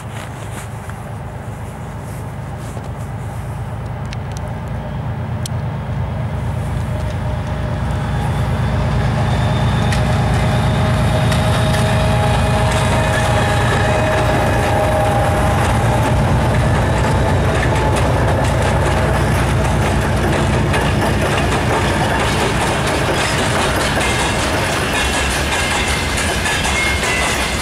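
A three-section 3TE10M diesel locomotive's two-stroke engines rumbling, growing louder over the first ten seconds as it comes past. Then the freight wagons behind it clatter steadily over the rail joints.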